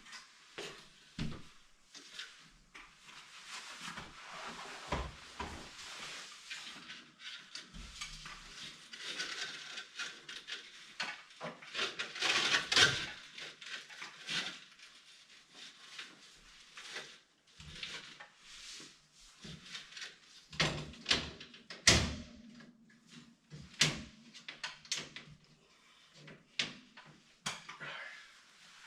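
Irregular knocks, clicks and rustling of someone moving about and handling things in an attic, with a louder rustle about halfway through and a sharp knock later on.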